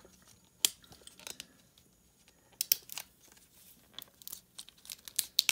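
Plastic wrap on an L.O.L. Surprise Lils toy capsule being pulled open by its tear tab: scattered crinkles and sharp crackles of tearing plastic, with a cluster around three seconds in and more near the end.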